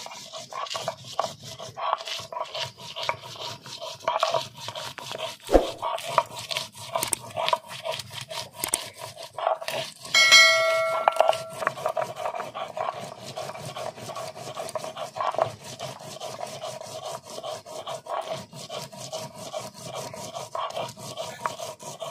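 Stone roller of a shil-nora grinding stone rubbed back and forth over chilies on the flat stone slab: a repeated rasping scrape of stone on stone as the chilies are ground to a wet paste. About ten seconds in, a brief loud high-pitched tone sounds for about a second.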